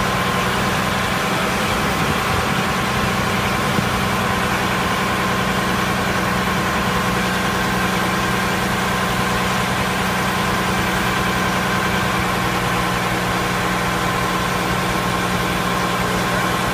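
Fire engine's engine and fire pump running steadily under load at pumping speed, pushing water through about 165 feet of inch-and-a-half hose to an Akron assault nozzle at roughly 175 psi discharge pressure. A constant drone with a steady hum, unchanging throughout.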